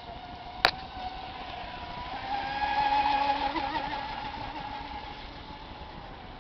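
Gozilla XXL radio-controlled boat running fast on the lake, its motor's high whine growing louder as it passes, about two to four seconds in, then fading away. A single sharp click sounds near the start.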